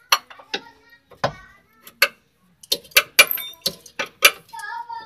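Irregular sharp metal-on-metal knocks and clanks, about nine in all, from tools striking and working the lower control arm of a Hyundai Starex front suspension to free it.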